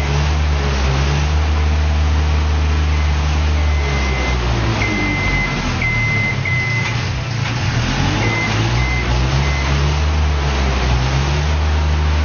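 Heavy machinery running with a deep, steady drone, with short high beeps starting and stopping irregularly from about a third of the way in.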